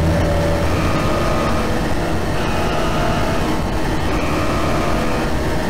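Loud, steady rumbling noise with faint high tones that come and go, like a passing train: a distorted horror sound layer in a synthetic band mix.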